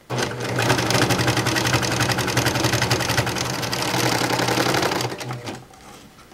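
Janome serger running at speed, stitching a seam through layers of terry-cloth towel with a fast, even stitch rhythm; it slows and stops about five and a half seconds in.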